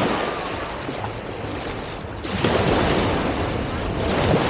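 Sea surf washing onto a beach in a steady rush. It swells loudest at the start and again from about halfway, with wind buffeting the microphone underneath.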